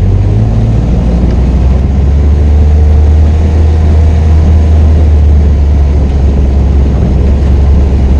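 A vehicle engine running steadily under way, a loud, even low hum.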